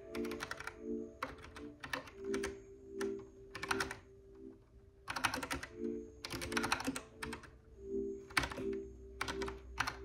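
Typing on a Kinesis Advantage 360 Pro split, contoured mechanical keyboard: keystrokes come in short quick runs with brief pauses between them, with soft background music underneath.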